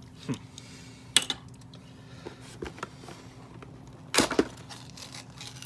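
Hands working a toy's plastic display tube and cardboard box: a few sharp clicks and knocks of plastic and card. The loudest comes about a second in, and two more come close together just after four seconds in, as a piece is pulled free of the packaging.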